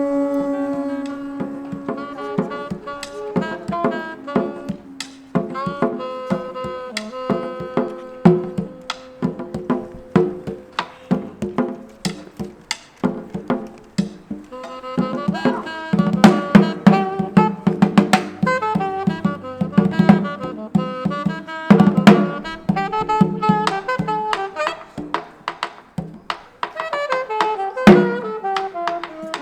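Lively instrumental music: a pitched melody of held and quick notes over drums and percussion, with a falling run of notes near the end.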